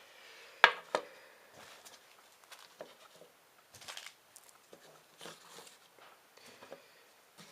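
Handling noise from small objects being moved about on a table: two sharp knocks about a second in, then scattered light taps and rustles.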